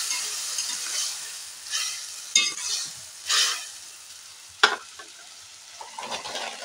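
Masala frying in oil in a steel kadai, sizzling while a metal spatula scrapes and stirs it with the potatoes and onions in several strokes. A sharp clink of the spatula comes about four and a half seconds in, and the sizzle carries on more quietly.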